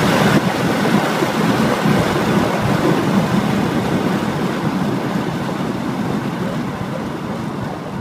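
Cabin noise of a BMW E92 M3 at high speed on a wet track: its V8 engine, tyre noise and wind blend into one steady rush. The rush fades gradually as the car brakes from about 130 mph to under 70 mph.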